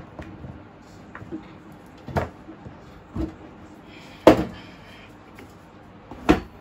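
Clunks and knocks of a folding laptop table's black plastic top being fitted onto its metal support rods and steel tube frame and then turned over: about five separate knocks, the loudest a little past four seconds in.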